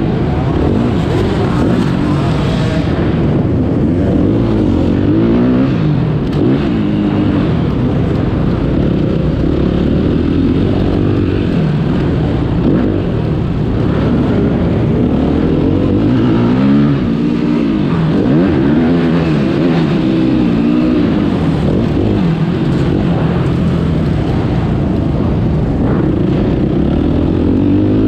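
Motocross bike engine revving hard, its pitch climbing and dropping over and over as the throttle is opened and shut.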